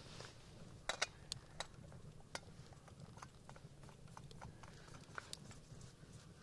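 Small metallic clicks and scrapes as a backpacking stove burner is handled and screwed onto a screw-top gas canister. A cluster of sharp clicks comes about a second in, with scattered lighter ticks after.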